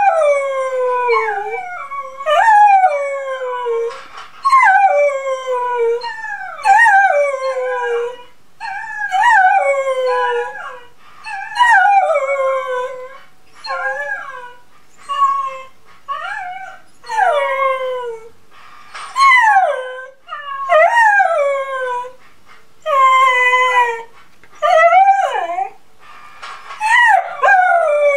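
A dog howling again and again, each howl a falling glide of a second or two with short breaks between, together with a recording of its own howling being played back, so at times two howls overlap.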